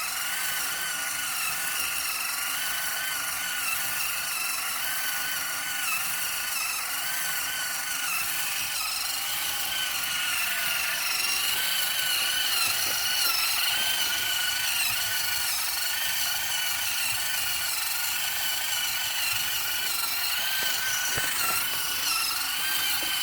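Small servo motor driving an RC concrete mixer's drum, whining steadily with a slightly wavering pitch as it turns the drum under a load of floor-dry granules, over a steady hiss.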